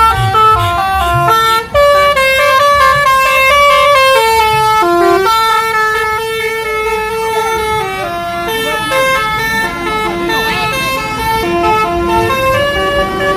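Bus telolet horn playing a quick tune of stepped notes, with a low engine rumble underneath.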